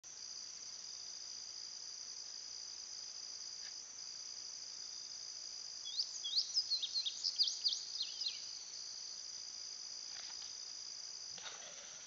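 A steady, high-pitched chorus of insects, crickets or similar, trilling without a break. About six seconds in, a bird gives a quick run of high chirping notes that sweep up and down, lasting roughly two seconds. One of the insect trills stops shortly before the end.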